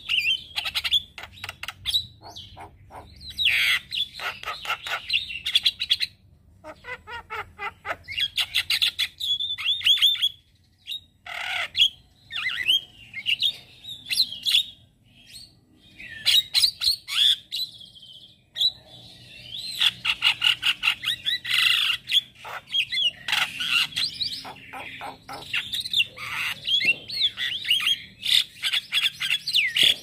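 Male Javan myna singing: bursts of fast chattering notes mixed with squawks and short whistled glides, broken by brief pauses between phrases.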